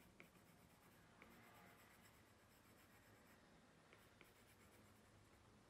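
Near silence, with the faint scratching and a few light taps of a stylus sketching quick strokes on a tablet's glass screen.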